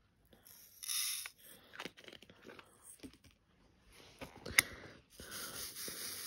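A plastic diamond-painting tray being handled and tipped, its small resin drills rattling and sliding, with plastic rustling. There is a sharp tap about four and a half seconds in, and a steady rustling pour from about five seconds on.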